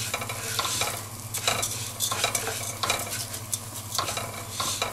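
Risotto rice and diced onion stirred with a spoon in a hot non-stick pot with olive oil: the grains scrape and rattle with irregular strokes over a steady sizzle. This is the toasting stage, when the rice turns glossy and translucent before any liquid goes in.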